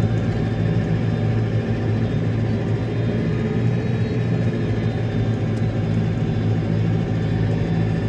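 Tractor engine running steadily under load while drawing a mole plough through the ground.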